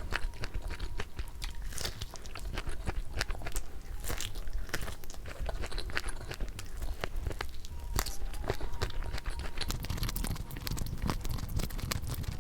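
Close-miked biting and chewing of crispy fried chicken, the battered coating crunching and crackling in quick, irregular bites.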